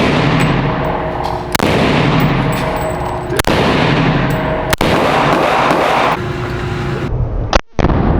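Loud gunfire: firearms being shot, several sharp cracks over a dense, sustained din.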